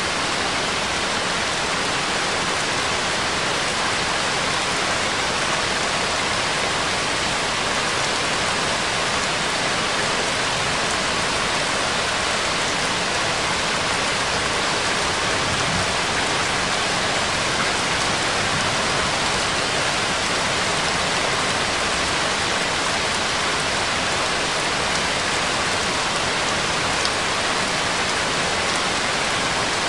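A steady, unchanging rain-like noise spread across low and high pitches, with no music or voice heard.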